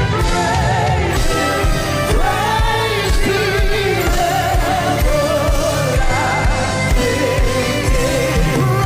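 Live gospel worship music: a voice sings long, wavering wordless notes over a band with a steady drum beat.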